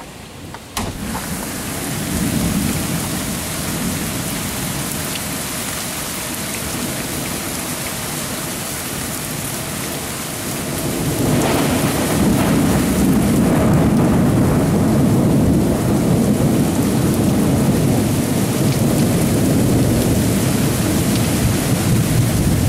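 Thunderstorm: steady heavy rain with deep rolling thunder rumbling underneath. The sound jumps louder abruptly about a second in, and the thunder swells much louder about halfway through and keeps rolling.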